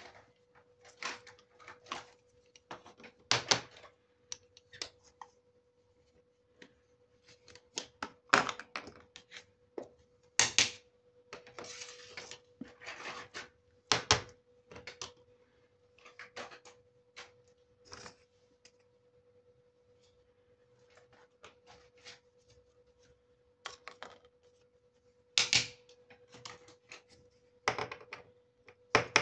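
Small plastic toy kitchen pieces clicking, tapping and clattering as they are handled and set down on a table, in irregular bursts with pauses between, and a stretch of rustling about twelve seconds in. A faint steady hum sits underneath.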